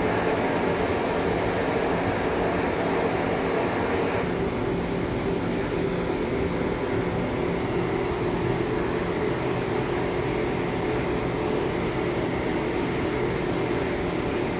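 CNC lathe turning a long shaft under coolant spray: a steady machine hum with a few held tones. A faint high whine drops out about four seconds in.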